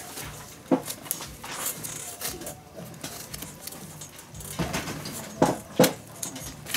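Leather lace being pulled with pliers through the fingertips of a leather baseball glove: rustling and creaking leather, with a few sharp snaps. The loudest snaps come about a second in and twice more around five and a half to six seconds in.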